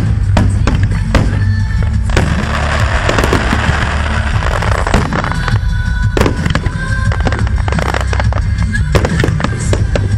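Aerial firework shells bursting in a rapid barrage, many bangs following and overlapping one another without a break.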